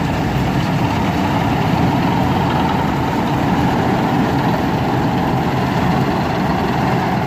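Kartar 4000 combine harvester's diesel engine running steadily, a continuous heavy drone with the machine's mechanical rattle over it.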